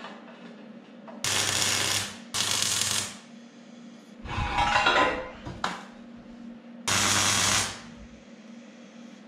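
MIG welder arc crackling and hissing in three short tack welds on steel, each under a second long: two in quick succession about a second in, a third about seven seconds in. Between them, a louder clatter and rumble of steel being handled.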